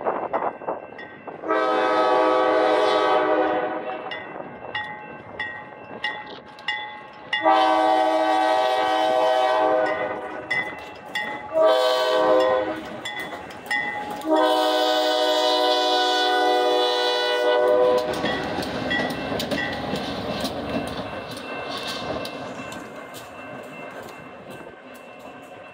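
GE B23-7R diesel locomotives sounding their air horn in the grade-crossing pattern, long, long, short, long, while a crossing signal bell rings steadily. After the last blast the locomotives rumble past and fade.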